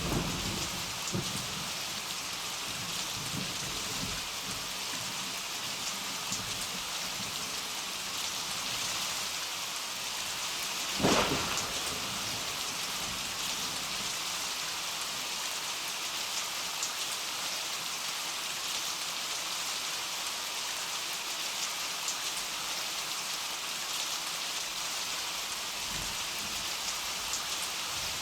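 Heavy rain pouring steadily, with thunder: low rumbling in the first few seconds, a sharp thunderclap about eleven seconds in that is the loudest moment, and a fainter rumble near the end.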